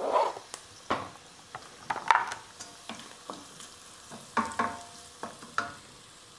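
Wooden spoon knocking and scraping around a stainless steel pan as chopped garlic, green chilli and ginger are stirred into frying onions, with a faint sizzle underneath. About a dozen irregular knocks, the last few leaving the pan ringing briefly.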